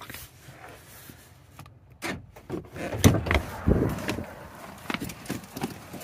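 Car door being unlatched and opened, with scattered clicks, knocks and rustling of someone climbing through, and a heavier thump a little past halfway.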